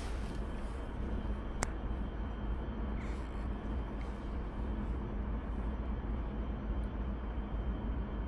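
Steady low rumble with one sharp click about a second and a half in.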